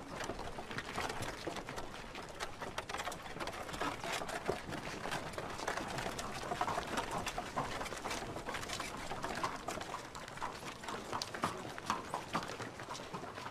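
Dense, irregular clatter of many quick clops and knocks.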